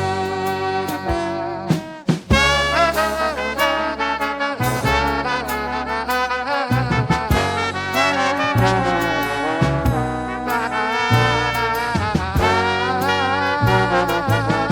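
Swing-style jazz music with brass horns, trombone and trumpet, over a steady beat of drum hits.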